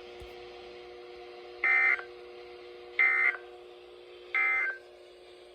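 NOAA Weather Radio SAME end-of-message code: three short bursts of two-tone digital data squeal, about a second and a half apart, marking the end of the emergency alert. A faint steady hum sits underneath.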